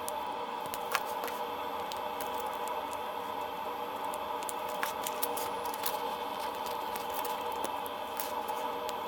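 Small plastic LEGO pieces clicking and rattling as they are handled and snapped together: scattered sharp clicks over a steady hum.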